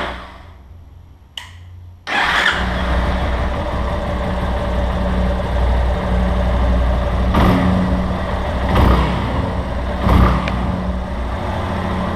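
Yamaha Lander motorcycle engine cutting out, a single click, then restarting about two seconds in and running steadily with a few brief rises in revs. The engine carries a light 'tec-tec' ticking, which the workshop chief puts down to a worn cam chain bearing.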